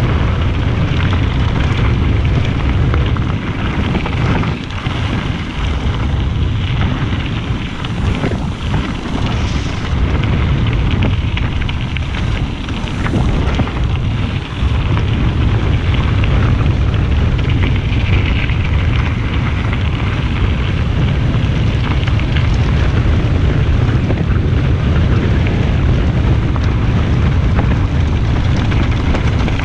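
Mountain bike descending a loose gravel track at speed: tyres crunching and the bike rattling over the stones, under heavy wind buffeting on the handlebar-mounted action camera's microphone. The noise gets louder about halfway through.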